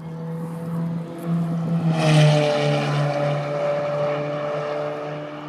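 A supercar engine holding a steady, high-revving note that swells to its loudest about two seconds in, then slowly fades with a slight drop in pitch.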